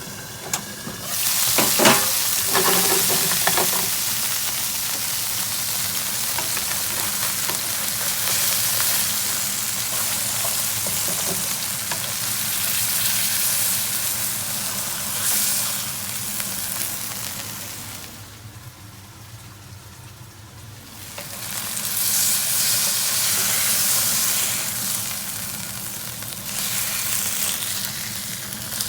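Whale bacon and eggs sizzling in a frying pan, a steady frying hiss. There are a few clatters about two seconds in. The sizzle drops away for a few seconds past the middle, then comes back.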